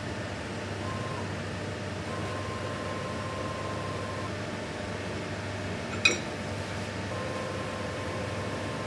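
Steady hum of a CNC milling machine standing by, with faint high tones coming and going over it and a single sharp click about six seconds in.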